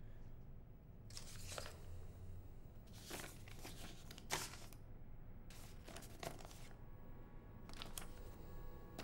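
Sheets of music manuscript paper handled and rustled in a series of short, crisp bursts.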